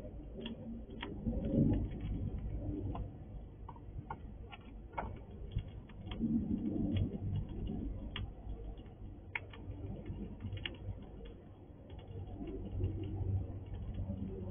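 A squirrel cracking and chewing sunflower seeds close to the microphone: irregular sharp clicks of shells cracking over a low rumble.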